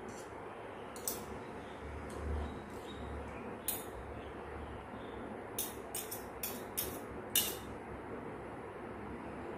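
Metal fork and spoon clinking against a plate while eating: a single clink about a second in, another near four seconds, then a quick run of five or six clinks in the second half, over a steady low hiss.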